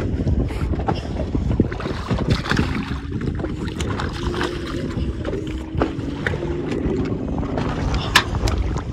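Wind buffeting the microphone on a boat at sea, over the low steady hum of the boat's motor. A few sharp clicks sound about eight seconds in.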